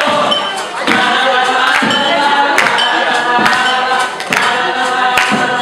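A group of voices singing together, a cappella in style, over sharp knocks that keep a steady beat a little more often than once a second.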